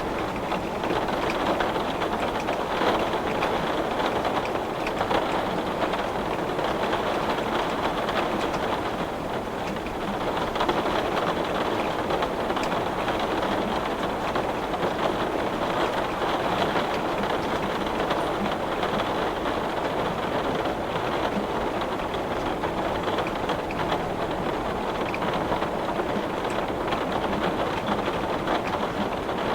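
Heavy rain falling on glass: a steady, dense patter of countless drops, easing slightly about nine seconds in and then building back.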